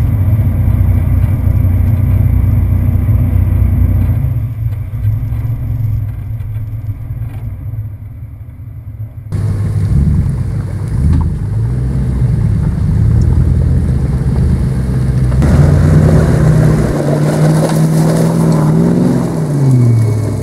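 A 4x4's engine runs steadily as it drives along a muddy track, its note fading down over several seconds. Then a Land Rover Discovery's engine labours and revs as the truck crawls through deep mud ruts, its pitch climbing in the second half and dropping again near the end.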